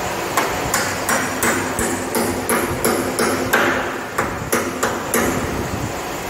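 Repeated hammer blows fixing a wooden door frame to the concrete wall, about three strikes a second with a brief pause about four seconds in.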